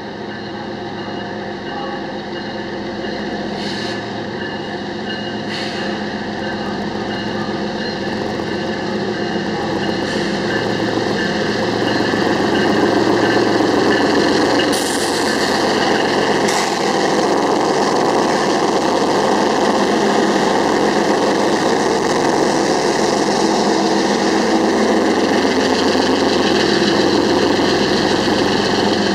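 Several Union Pacific diesel freight locomotives running as they pass slowly at close range, the engine drone building over the first dozen seconds and then holding loud as the units and the first gondola cars go by. A few brief sharp clicks sound along the way.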